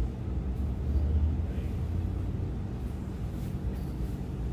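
A steady low rumbling hum, swelling briefly about a second in.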